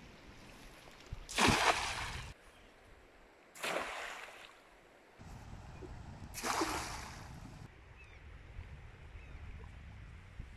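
Water splashing in three short bursts, each fading away over about a second, against a faint steady river background.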